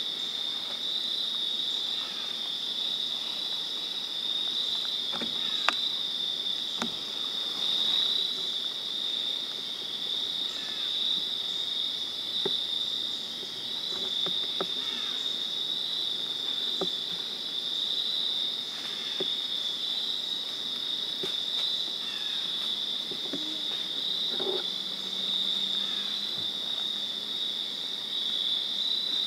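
Evening insect chorus, mostly crickets: a steady high-pitched trill with a fainter, higher band above it. A few faint clicks and snaps come and go through it.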